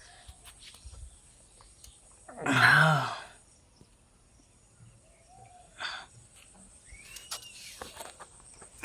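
Three-week-old Rottweiler puppies squeaking, with thin high cries that rise and fall, about seven seconds in. A louder, lower-pitched sound lasting about half a second comes about two and a half seconds in.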